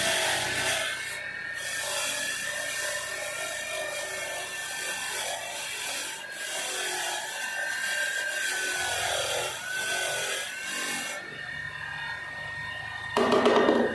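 Scraping and rubbing on metal parts of a hydraulic control valve being cleaned, over a thin steady high whine, with a louder rasp about 13 seconds in.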